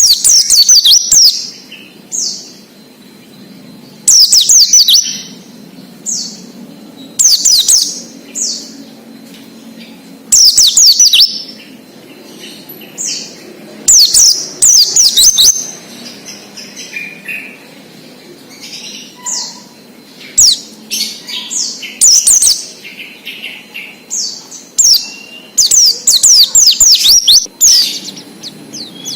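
White-eye (pleci) singing its 'ngalas' song: loud phrases of rapid, high, falling chirps about every three seconds, with short single notes between them.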